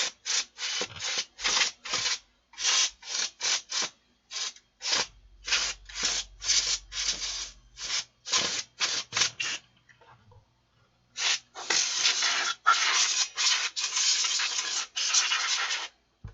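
A brush scrubbing caked dust loose inside a power amplifier's chassis, in short quick strokes about three a second. After a short pause about ten seconds in, a longer, almost unbroken stretch of the same rushing, scrubbing noise follows.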